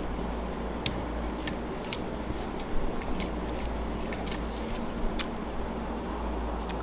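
Scattered soft wet clicks and squishes of fingers mixing rice and dal on a plate and of mouth-chewing, over a steady low hum.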